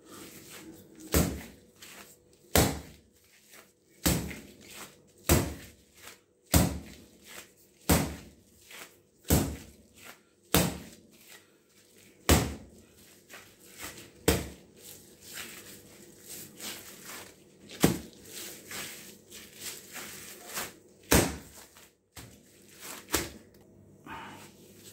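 Bread dough being kneaded by hand on a countertop: a thud about every second and a half as the dough is pushed or slapped down. The thuds come less often and less regularly in the second half.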